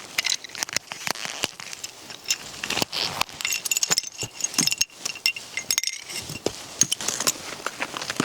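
Pieces of ice clinking and knocking together with a glassy ring, amid many small sharp clicks; the ringing is clearest in the middle.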